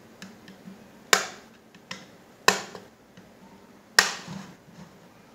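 Plastic snap clips of a Huawei 5G CPE Pro 2 router's top cover popping loose as a small flat screwdriver pries along the seam: three sharp clicks about a second and a half apart, with a few lighter ticks of the blade on the plastic between them.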